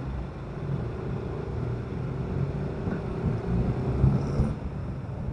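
Motorcycle engine running while the bike is ridden, with a steady engine drone.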